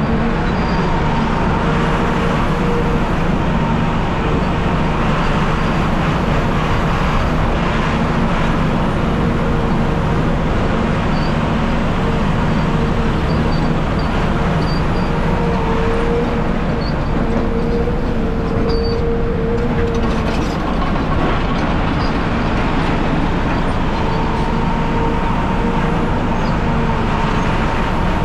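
CAT 740B articulated haul truck running steadily under way: a constant engine and drivetrain rumble, with a steady whine in it that swells and fades slightly.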